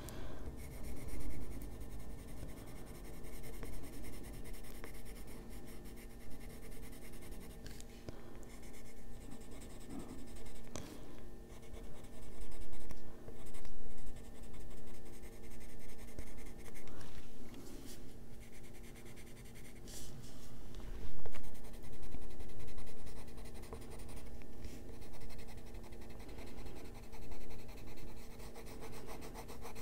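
Caran d'Ache Luminance coloured pencil scratching across paper in short, uneven shading strokes, working colour into small areas. A steady low hum runs underneath.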